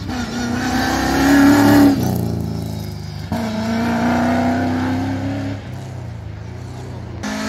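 BMW E36 sprint car's engine pulling hard, its pitch climbing for about two seconds, dropping sharply at a gear change, then climbing again before easing to a lower, steadier note near the end.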